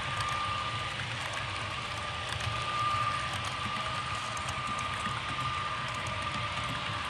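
Model train running on layout track: a steady high whine over an even hiss, with faint light clicks.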